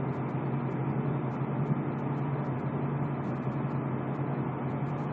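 A steady low hum of background noise with a low drone and its overtones, unchanging throughout.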